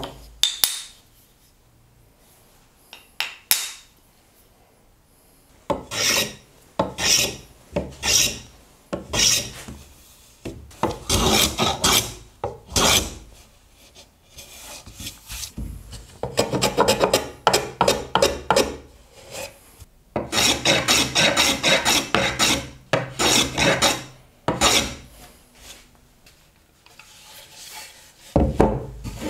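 Oak being worked by hand with a small block rubbed along the wood, scraping strokes about once a second at first, then fast runs of several strokes a second in the middle. A low thump near the end.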